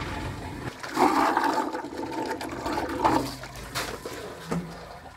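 Water rushing and splashing, with two loud surges about a second and three seconds in.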